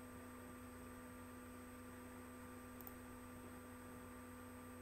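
Near silence: a faint steady electrical hum with low hiss, and one faint click about three seconds in.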